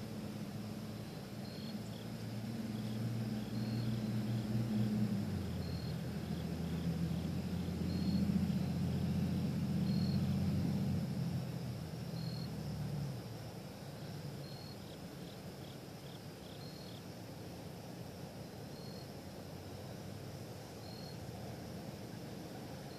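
Outdoor background: a low motor hum that grows over the first few seconds, changes pitch about five seconds in and fades out about thirteen seconds in. A faint, high, short chirp repeats about every two seconds.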